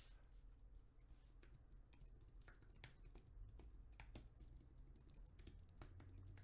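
Faint typing on a low-profile computer keyboard: quick, irregular key clicks.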